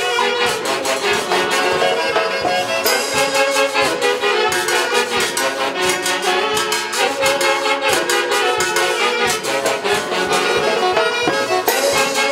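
Huaylarsh music played live by an Andean orquesta típica. Clarinet and saxophones carry the melody over harp and drums, with a steady, quick beat.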